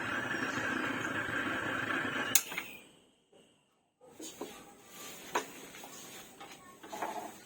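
Steady hiss from a gas stove burner, ending with a sharp click about two and a half seconds in. A few fainter clicks follow.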